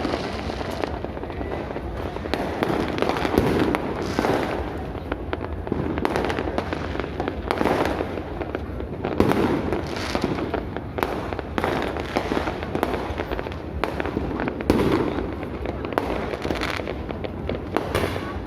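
Fireworks display going off continuously: many overlapping bangs and crackles in a rapid, irregular run.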